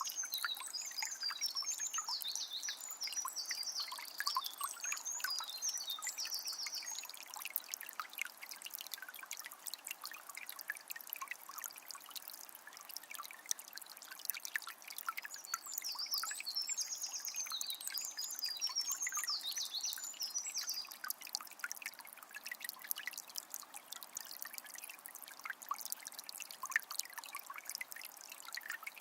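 A small spring trickling and splashing steadily. A songbird sings in quick, high, warbling phrases over it, twice, each burst lasting several seconds.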